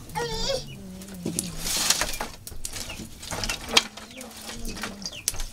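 Wood fire crackling on an open hearth, with scattered sharp snaps and pops, the loudest a little under four seconds in. A low, steady hum runs underneath for several seconds.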